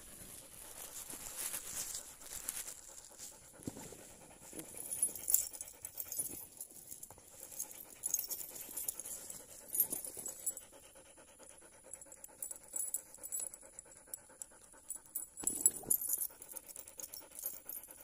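Belgian Malinois panting rapidly, a dog tired out from a steep climb and resting. A few sharper knocks and rattles now and then, as a metal chain is handled.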